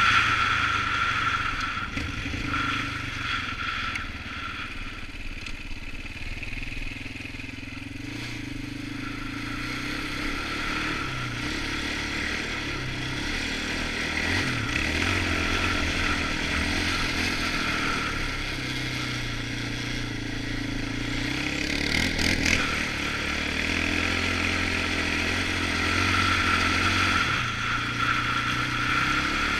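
Polaris Outlaw 525 ATV's KTM-built single-cylinder four-stroke engine running while riding, the revs rising and falling with the throttle. It eases off a few seconds in, then builds up again, with a brief clatter about three-quarters through.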